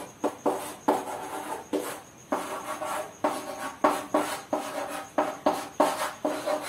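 Chalk writing on a chalkboard: a quick string of short scraping strokes, each starting with a sharp tap, about three a second.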